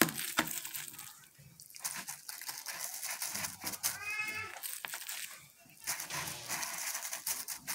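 Plastic bag lining a bowl crinkling and rustling as gloved hands press filling into packed rice, with scattered small crackles. About four seconds in there is one short, high-pitched call.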